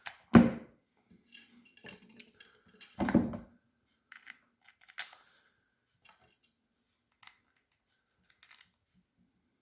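Plastic cover and screws of a Makita HR2020 hammer drill being handled as the cover goes back on: two loud knocks, about half a second and three seconds in, then faint scattered clicks and small rattles.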